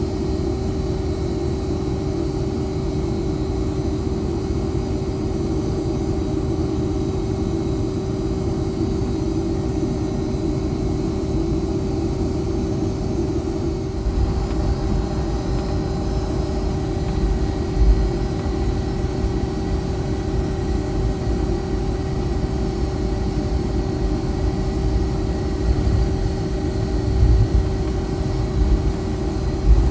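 Boeing 757's Rolls-Royce RB211 engines running at low power, heard inside the cabin as a steady hum over a low rumble. A few low thumps come about a third of the way in and again near the end.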